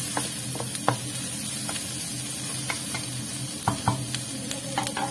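Chicken gizzards sautéing in oil with garlic and onion in a stainless steel wok, a steady sizzle, while a wooden spatula stirs them and knocks against the pan with scattered sharp clicks, several close together near the end.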